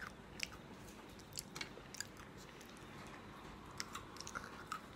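A person chewing crunchy vacuum-fried fruit and vegetable chips: faint, scattered crisp crunches and small clicks, in little clusters with short pauses between.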